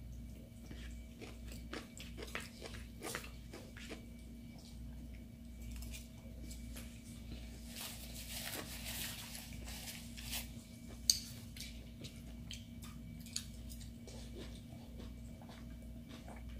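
Faint close-up eating sounds: chewing and biting, with small clicks of forks on plates. A short papery rustle comes about halfway through, and a single sharp click a little after, over a faint steady hum.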